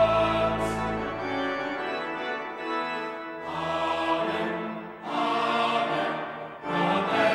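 Cathedral choir with boy trebles singing a threefold 'Amen' with pipe organ. A held organ-and-choir chord with deep bass notes ends about a second in. Then three separate Amens follow, each swelling and fading away.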